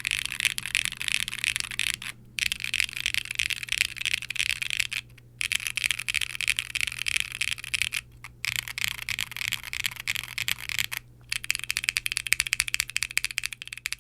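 Fast typing on a Qwertykeys Neo60 Core mechanical keyboard with Wuque Studios BigLucky tactile switches and GMK doubleshot ABS keycaps on an aluminum plate: dense bright key clacks in runs of a few seconds with brief pauses between, and the switches' spring leaves ticking.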